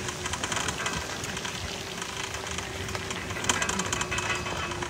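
Crunching and rustling of footsteps on dry leaves and sandy ground while walking, with many small crackles and a faint steady hum underneath.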